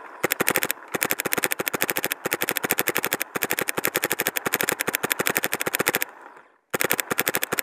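Planet Eclipse E-Cocker paintball marker firing in uncapped semi-automatic, with no rate limit. A few single shots come first, then a long rapid string of pops. About six seconds in there is a brief pause before another rapid string starts.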